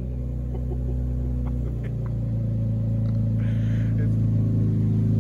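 Infiniti Q60 Red Sport's twin-turbo V6 idling steadily through an open, muffler-deleted exhaust with high-flow downpipes, a low drone just after a cold start. It grows slightly louder, with a short hiss about three and a half seconds in.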